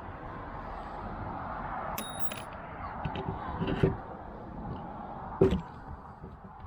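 Handling of pop rivets and a hand rivet gun: a small metallic clink about two seconds in, a few light knocks, and one sharp knock, the loudest, about five and a half seconds in, over a steady hiss.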